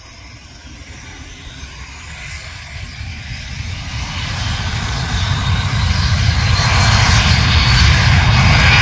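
The three Honeywell TFE731-5BR turbofans of a Dassault Falcon 900B run up to takeoff power as the jet begins its takeoff roll. The sound grows steadily louder throughout, a deep rumble under a rising hiss.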